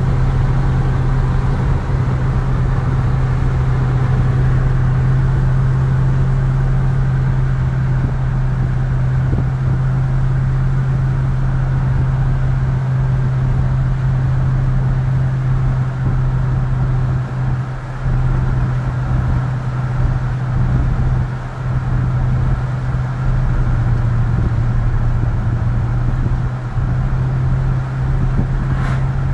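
A 1966 Ford F100 pickup's 302 (5.0-liter) V8 running at a steady cruising speed, heard from inside the cab as a constant low engine drone over road noise.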